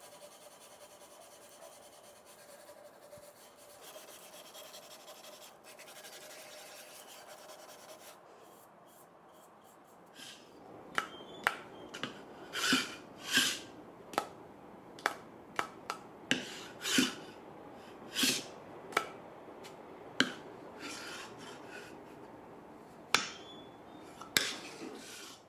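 Sandpaper on a hand-held sanding pad rubbed over a wooden spatula: a series of short, irregular sanding strokes, starting about ten seconds in after a stretch of faint background noise.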